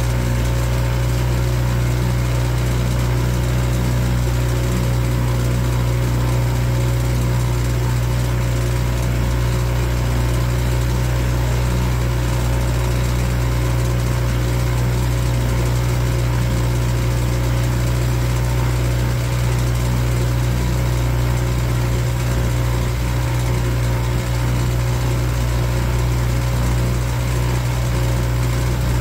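Boat engine running steadily under way, a constant low drone that holds the same pitch throughout.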